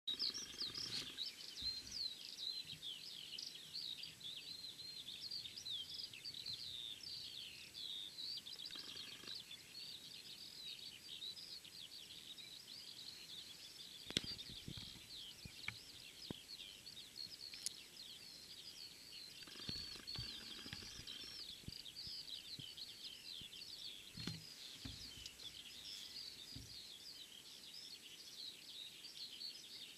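Songbirds singing in a dense, unbroken chorus of quick high chirps and trills, with a few faint low knocks now and then.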